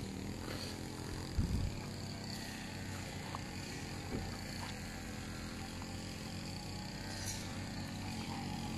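A steady low mechanical hum under a faint hiss, with a brief low thump about a second and a half in.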